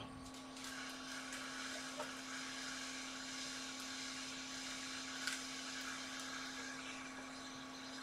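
Hot air rework station blowing a steady hiss through its nozzle onto a new iPhone 7 audio IC, reflowing the solder under the chip, over a constant low hum. The air starts about half a second in.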